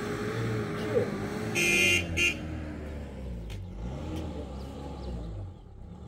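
A vehicle horn honks twice, about a second and a half in: one toot of under half a second, then a shorter one. An engine runs low underneath.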